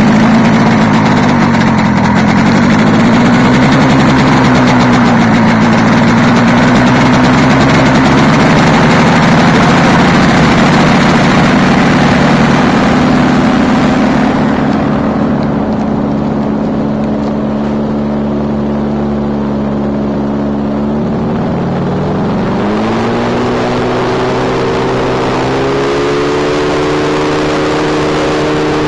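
RMZ two-stroke engine running hard, driving a propeller on a tethered static thrust test, with a loud steady propeller buzz. A little over 20 seconds in the revs climb and settle at a higher pitch.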